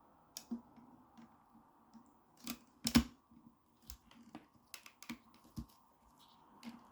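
Hard plastic vacuum parts clicking and knocking together as the motor protection cover is fitted over a stick vacuum's motor. The clicks are scattered and irregular, with the loudest knock about three seconds in.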